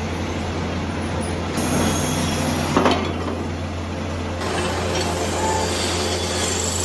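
Factory machinery running: a steady mechanical din over a constant low hum, with one sharp knock about three seconds in.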